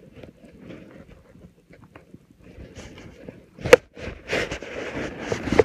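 Cloth rustling and handling bumps right at the microphone, quiet at first and louder from about halfway, with one sharp knock a little before the louder stretch.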